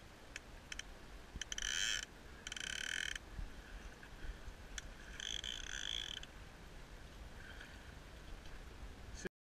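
Fly reel's click ratchet buzzing in several short runs of half a second to a second each while a hooked salmon is played on a bent fly rod. The sound cuts off abruptly near the end.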